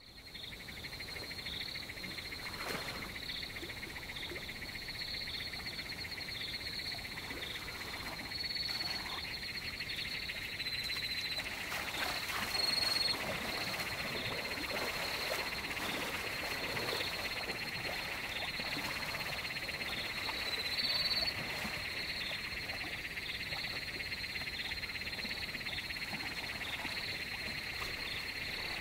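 Night-style chorus of frogs and insects at a waterhole: a steady trilling drone with short, higher calls repeating about once a second.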